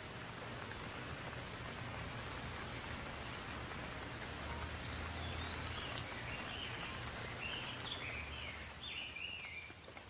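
Steady rain falling, an even hiss. Through the second half a bird gives a run of short chirps.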